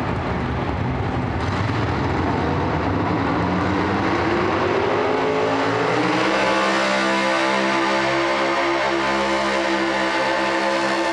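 Outlaw 4x4 pulling truck's engine revving up, its pitch climbing over a few seconds, then held at high revs as the truck drags the weight sled down the dirt track.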